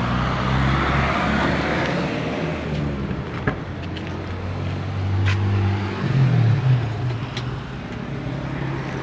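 Vehicle engine running steadily, with one sharp click about three and a half seconds in, as of a car door latch being opened.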